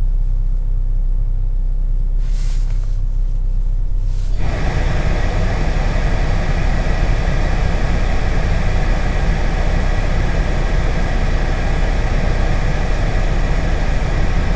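Car engine idling steadily, heard from inside the cabin just after a below-zero cold start, still cold with its coolant only around 40°F. About four seconds in, a loud steady rushing noise comes on over the idle.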